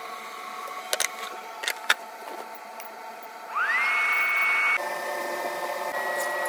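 Steady hum of a kitchen cooking appliance with a digital timer, with a few sharp clicks in the first two seconds. About three and a half seconds in, a fan spins up with a rising whine that levels off to a steady high tone over a rush of air, then cuts off a second later. A steadier hum with a fixed high tone follows.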